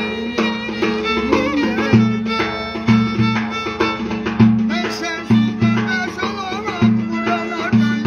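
Live folk music on a large single-headed hand drum and a violin bowed upright on the knee: deep drum strokes about one to two a second under the fiddle's tune, with a man singing along.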